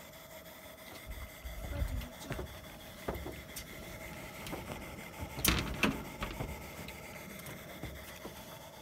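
Perseus toy steam engine running steadily as it drives a Tinker Toy windmill by a belt, a steady whine under it, with a few sharp knocks, the loudest pair about five and a half seconds in.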